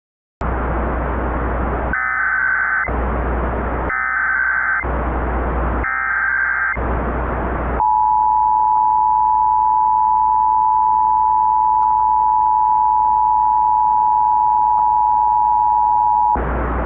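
Emergency Alert System tones over static hiss. Three short SAME header data bursts, each a rapid chirping between two pitches, are followed by the steady two-tone EAS attention signal, which holds for about eight seconds and then gives way to static.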